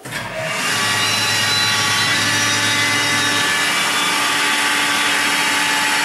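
KAESER SXC 8 rotary screw compressor station starting up: the motor and air end run up over about the first second, then run steadily with an even hum, a second steady tone joining about two seconds in.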